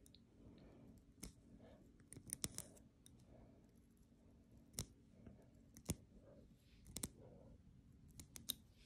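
Faint, sharp clicks of metal tweezers at irregular intervals, a second or so apart, as hairs are plucked one at a time from a lace front wig's hairline.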